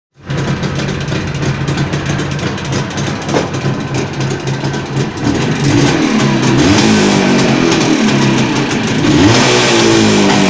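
Jawa 638's 350 cc two-stroke twin engine running with a knock that the owner puts down to the crankshaft and the chain, in an engine with a tired, worn top end. It ticks over steadily at first, then from about halfway is revved up and down several times, growing louder.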